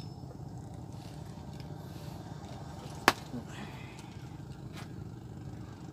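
Steady low motor drone, with a single sharp knock about three seconds in.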